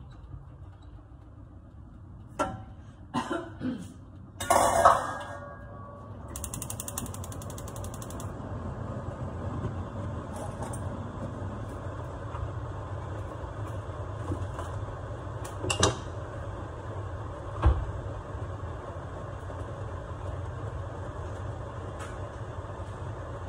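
Metal pans clanking a few times on a gas hob, then a gas burner's igniter clicking rapidly for about two seconds as the burner is lit. After it lights, a steady rush carries on, broken by two more light knocks.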